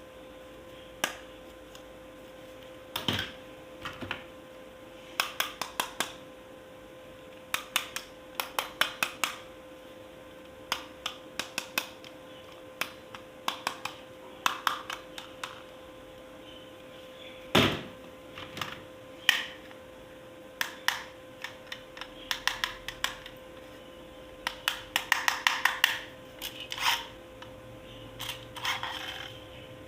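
Hard plastic toy pieces being handled: scattered sharp clicks and clatters, often in quick runs of three to five, over a faint steady hum.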